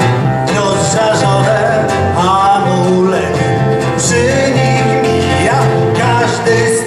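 Live acoustic band playing an instrumental break: two acoustic guitars with an upright electric bass, in a country-style tune with a steady beat.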